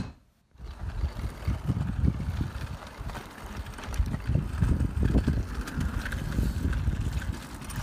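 Wind buffeting the microphone, mixed with the rumble of children's bikes and a plastic-wheeled low trike rolling over asphalt.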